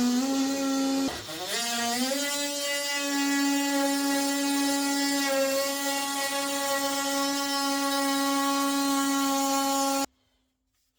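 DeWalt oscillating multi-tool cutting a thin wood floor sheet, a steady high buzz. About a second in its pitch dips and climbs back, and it stops abruptly near the end.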